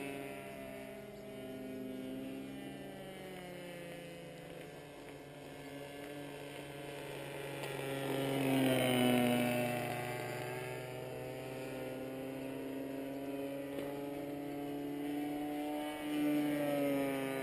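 Internal-combustion engine of a radio-controlled Ultimate aerobatic biplane in flight, its pitch rising and falling with throttle and manoeuvres. It is loudest a little past halfway, as the plane passes close, with the pitch dropping as it goes by.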